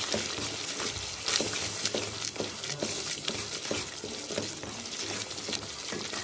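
Wooden spoon stirring and scraping a thick yogurt-and-onion masala around a steel karahi, with a short scrape about twice a second over a steady sizzle of frying.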